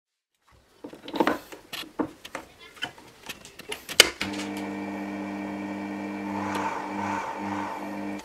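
Clicks and knocks of an aluminium tube being handled at a Proxxon mini lathe. About four seconds in comes a sharp switch click, and the lathe's electric motor starts and runs with a steady hum, wavering briefly near the end before it stops.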